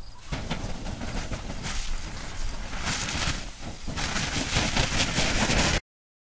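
Garden hose spray nozzle spraying water onto a hot, smouldering pile of biochar, a steady hiss that grows louder over the last couple of seconds, over a low rumble of wind and handling on the microphone. It cuts off suddenly near the end.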